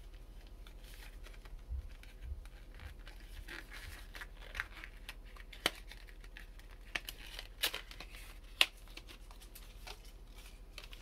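Small paperboard box of paint tubes being handled and opened by hand: scattered rustling and scraping of cardboard, a few low taps early on, and several sharp clicks later.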